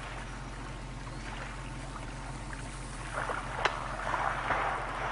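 Water splashing and sloshing as killer whales swim at the surface, louder and choppier from about three seconds in, over a steady low hum.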